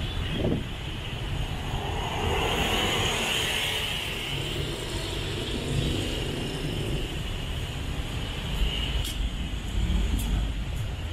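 Street traffic going past, cars and motorbikes, as a steady wash of engine and tyre noise with a falling pass-by sweep about half a second in and a few sharp clicks near the end.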